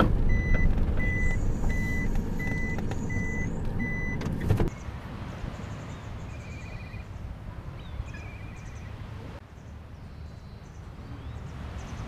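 Mazda Scrum kei van's reverse warning beeper, heard inside the cab: short high beeps repeating steadily, a little more than one a second, over the engine running, as the van backs into a parking space. It cuts off about four and a half seconds in. Quieter outdoor ambience follows, with a few faint chirps.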